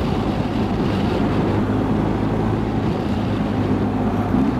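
BMW R1250 GS Adventure's boxer-twin engine running at a steady cruise, under the rush of wind over the microphone.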